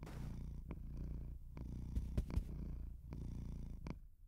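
Domestic cat purring: a steady low rumble that swells and eases with each breath, about one breath a second.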